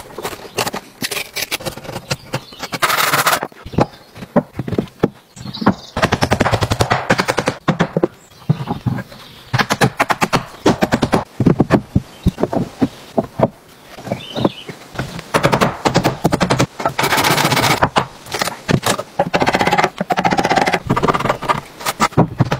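Carpentry on wooden boards: many sharp knocks, like hammer blows on timber, broken by several longer rasping stretches, like a hand plane taking shavings off a board.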